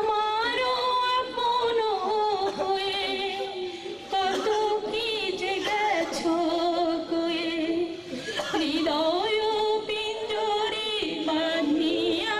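A woman singing a slow melody, holding long notes that waver.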